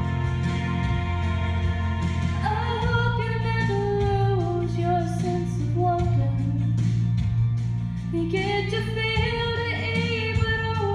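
A young woman singing a country song into a handheld microphone over instrumental accompaniment played through stage speakers. The accompaniment plays alone for about two seconds before her voice comes in; she breaks off briefly about three-quarters of the way through, then sings on.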